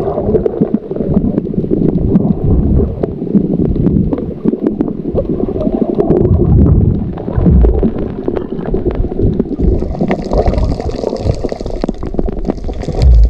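Muffled gurgling and sloshing of water close to the microphone: a dense, choppy low rumble with scattered small clicks, and some added hiss near the end.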